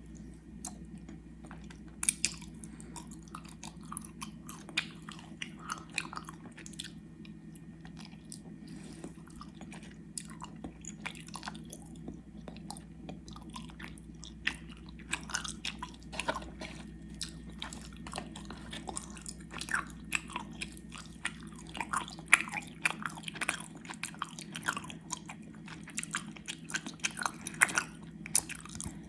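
Close-up chewing of gummy worms: wet, sticky mouth sounds with many irregular little clicks and smacks, busier in the second half.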